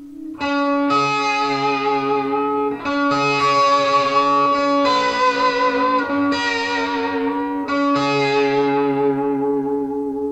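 Suhr Modern Satin electric guitar played through effects. About six notes and chords are picked in turn, each left ringing over one sustained low note, and the last one fades out near the end.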